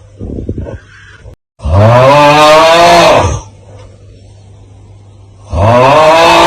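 The 'Aauuggh' meme sound: a man's loud, drawn-out groaning yell, its pitch rising and then falling, looped. It comes about a second and a half in, lasting about two seconds, and starts again near the end, with a short, fainter breathy sound just before the first one.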